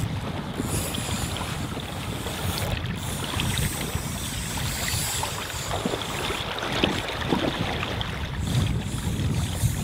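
River water moving and lapping, with wind buffeting the microphone in a steady low rumble.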